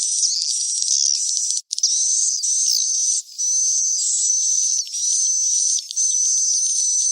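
Swiftlet-house lure recording of swiftlet roosting ('inap') calls: a dense chatter of high, buzzy chirps and trills in runs of about a second, broken by short gaps. Everything below about 2 kHz is filtered out, so the calls sound thin and bright.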